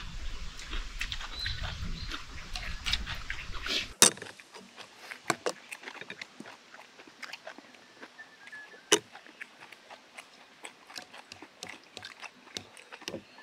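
Eating sounds: noodles being slurped and chewed, with scattered clicks of chopsticks and a spoon against stainless steel bowls. About four seconds in the sound turns quieter, leaving mostly small clicks and mouth smacks.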